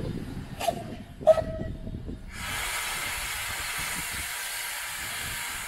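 Steam rack locomotive: a low running rumble and two sharp metallic clanks about a second in, then from about two seconds in a steady hiss of steam venting from the engine.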